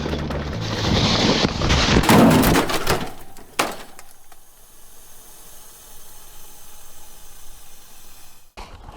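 Background music fading out, then loud rushing noise of a mountain bike being ridden down a rough trail. A single sharp knock comes about three and a half seconds in, and after it there is only a quieter steady hiss.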